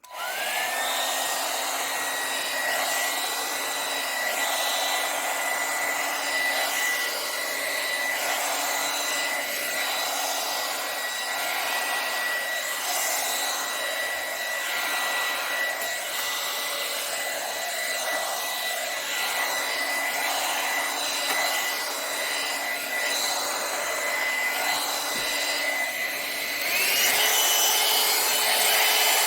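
Hot air brush (hair dryer brush) switched on: its motor whine rises quickly to a steady pitch over the rush of air, and it runs steadily. About 27 seconds in it is switched to a higher setting, and it runs louder with a higher-pitched whine.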